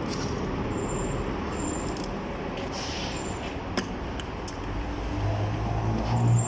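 Steady background noise of a large open vehicle workshop. A vehicle engine's low hum comes in about five seconds in and grows louder, with a single click near the middle.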